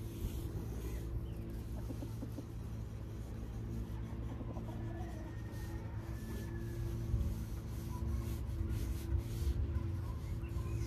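Pencil scratching on paper in short strokes as a drawing is sketched, most of them in the second half, over a steady low hum.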